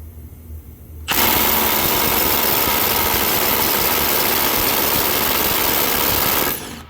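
Milwaukee M18 Fuel Gen 4 1/4-inch hex impact driver hammering steadily in reverse on its highest setting. It starts about a second in and runs for about five seconds before stopping near the end. It is working loose a nut torqued to about 200 ft-lb, which took some work.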